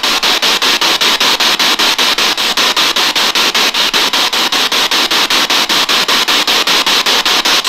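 Radio static from a ghost box sweeping through the radio band: a steady loud hiss broken by short gaps about five or six times a second as it steps from station to station.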